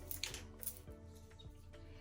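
Quiet background music, with a few faint clicks from handling near the start.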